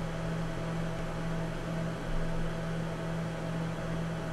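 A steady low hum with a constant hiss behind it, even throughout, with no distinct tool clicks or knocks.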